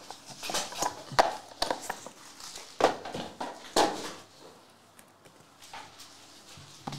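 A cardboard trading-card box and its packaging being handled and moved on a desk mat: a quick run of knocks and rustles in the first four seconds, then quieter handling.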